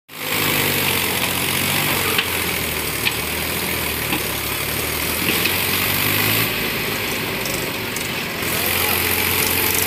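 Mahindra tractor's diesel engine running steadily at low revs while pulling a trailer loaded with soil, with a couple of short clicks about two and three seconds in.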